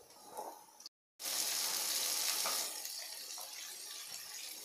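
Cubed onion and capsicum sizzling in hot oil in a frying pan, stirred with a spatula. The sizzle starts suddenly about a second in, loud at first, then settles to a steadier, lower sizzle.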